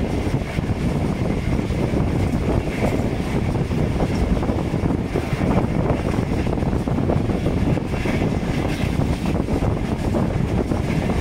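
Express passenger train running at speed, heard from an open coach window: a steady rumble of wheels on rail mixed with rushing wind on the microphone.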